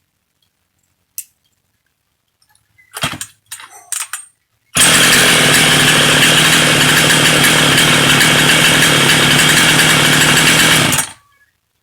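Ported Jonsered 535 two-stroke chainsaw with an opened-up muffler, running steadily at high revs without cutting wood. It starts abruptly about five seconds in, after a click and a few short noises, runs for about six seconds and then cuts off.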